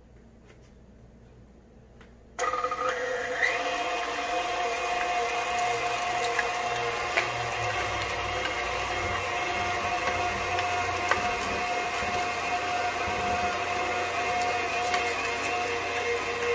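KitchenAid stand mixer switched on about two seconds in, then running steadily with a motor whine as it drives a Kenome meat grinder attachment grinding pork, with a few small clicks.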